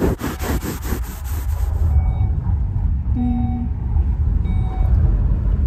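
Scraping and rustling of a phone being handled inside a car for the first two seconds, over a steady low rumble from the car. Short electronic beeps sound about once a second.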